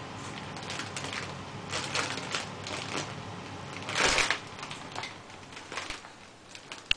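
Thin plastic bag crinkling and rustling in irregular bursts as it is pulled and crumpled by a baby's hands, loudest about four seconds in.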